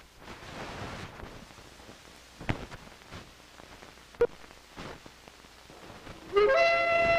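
Hiss and a few sharp clicks from a worn 8 mm film soundtrack transferred to tape. About six seconds in, a flute-like woodwind melody starts and is the loudest sound.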